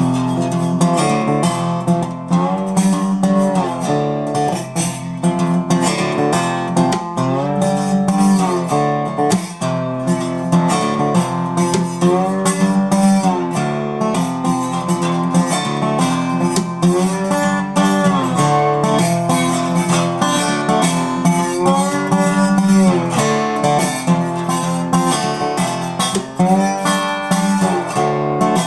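Acoustic guitar played solo without singing, strummed and picked in a bluesy riff, with many notes sliding up and down in pitch.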